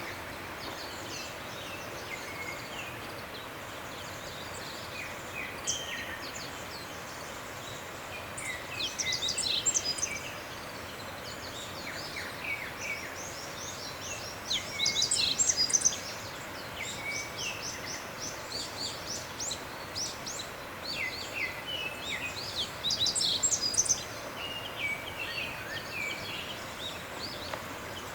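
Several small birds singing and calling in quick chirps and trills over a steady background hiss, with three louder spells of song.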